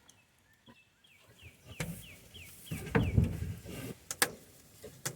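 A small bird calls a quick run of about eight short falling chirps, while the pigs in the pen give low grunts. Two sharp knocks come near the end.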